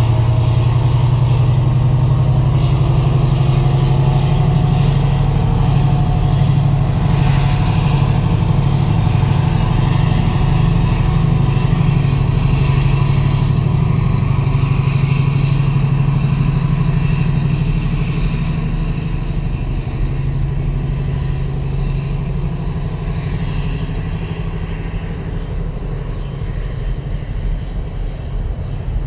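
Heavy diesel freight locomotive pulling away under power, its engine note strong and steady, then fading about halfway through as the locomotive draws off. The rumble and clatter of loaded hopper wagons rolling past carries on after the engine fades.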